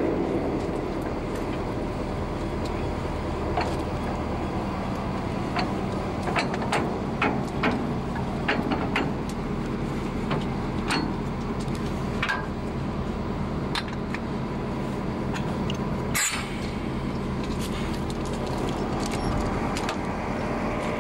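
SNCF BB 67400 diesel locomotive idling steadily at close range, with scattered metallic clinks and knocks as the screw coupling and brake hoses are handled to couple it to a tank wagon; one sharper knock comes about sixteen seconds in.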